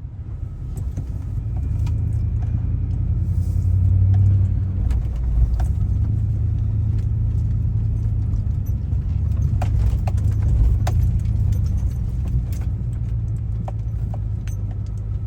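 Vehicle cabin noise while driving: a steady low engine and road rumble, with scattered small clicks and rattles.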